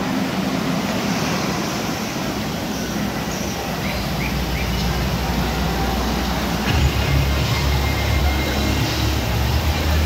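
Steady wash of crowd noise in a busy hall, with a low hum that comes in about four seconds in and grows louder about seven seconds in.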